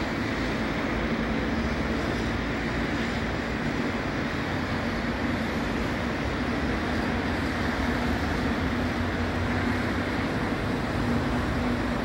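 Steady road-traffic noise from a busy multi-lane city avenue: an even wash of engine and tyre noise from cars, trucks and motorcycles, with a steady low engine drone underneath.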